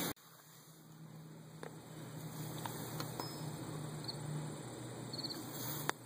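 Quiet outdoor background with a steady low hum, a few faint high bird chirps in the second half, and a few light clicks, the sharpest just before the end.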